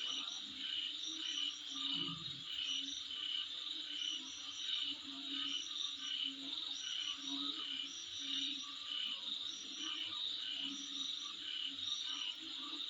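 A chorus of insects calling in the dark, with short high chirps repeating about every half second in a steady rhythm over a lower pulsing call.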